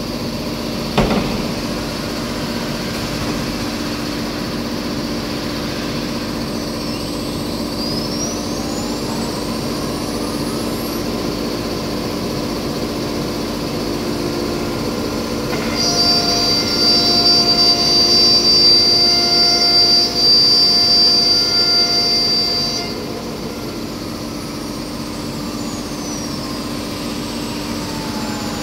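Dual 9 kW tool-changer spindles of a CNC router running, over a steady machine hum. A whine glides up in pitch early on; from about halfway a louder, high-pitched whine holds for about seven seconds, then stops, and a whine falls in pitch near the end. A single click about a second in.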